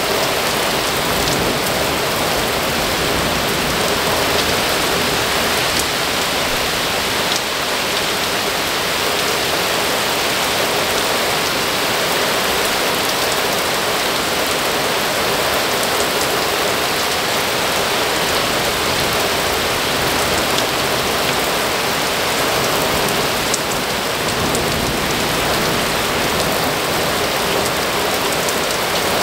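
Very heavy thunderstorm rain pouring down, a dense, steady hiss with no let-up.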